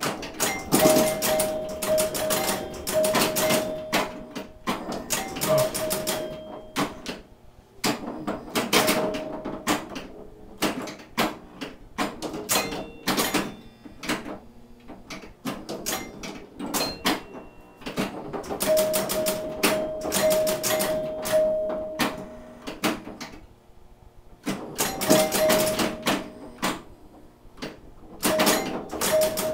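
1974 Williams Skylab electromechanical pinball machine in play: bursts of sharp clacks and clicks from flippers, bumpers, relays and score reels, with short lulls between them. The scoring chimes ring in quick runs of repeated strikes several times.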